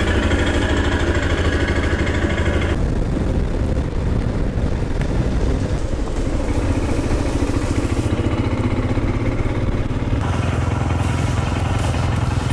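Motorcycle engine running while the bike is ridden along a road. The sound changes abruptly about three seconds in and again near ten seconds.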